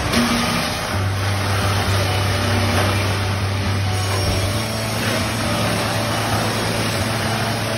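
Artiglio 1600 log band sawmill and its log carriage running, a loud, dense, steady machine noise with a low hum from about a second in to about halfway.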